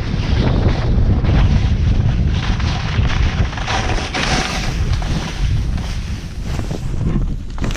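Wind buffeting a GoPro's microphone during a ski descent, a heavy low rumble, with skis hissing and scraping over snow that swells and fades with the turns.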